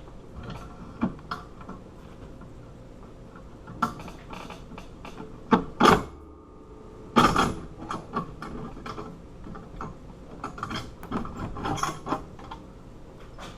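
Metal clicks and clanks of bolt cutters working on a disk padlock's shackle, with two loud sharp clanks about six and seven seconds in.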